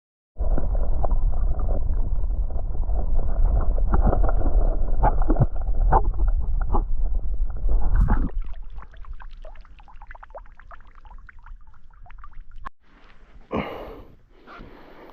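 Wind buffeting the camera microphone: a loud, low, rough rumble that starts abruptly and eases off about eight seconds in, leaving fainter ticks and rustles.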